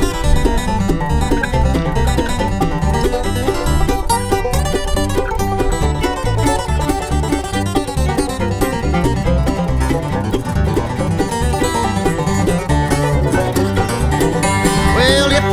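Bluegrass-style country music: an instrumental break with banjo and guitar over a steady beat.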